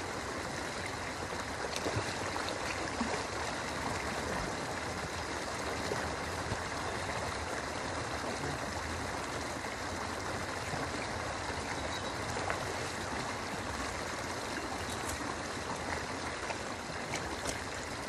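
River water flowing steadily over and around a low submerged concrete crossing, a continuous even rush with some trickling.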